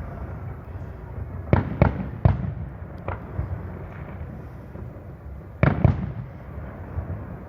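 Fireworks exploding at a distance: three bangs in quick succession about a second and a half in, then two close together later on, over a low steady rumble.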